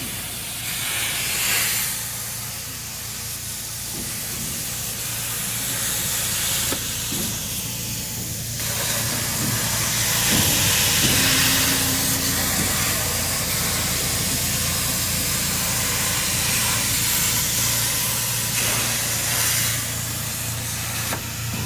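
LGK-63IGBT inverter plasma cutter on a CNC plasma table, its torch arc hissing steadily as it cuts through thin sheet metal, over a steady low hum.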